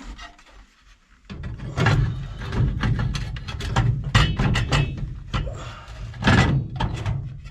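Sheet-metal ductwork being handled and knocked while a zone damper is worked in: after a quiet second, a dense, continuing run of thuds and metallic clatter.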